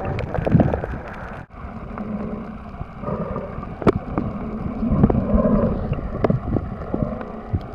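Steady water and wind noise around a boat on the sea, with scattered knocks and clicks.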